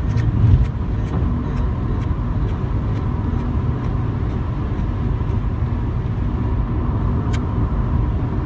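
Steady low rumble of a motor vehicle, with a faint steady hum and a light click about seven seconds in.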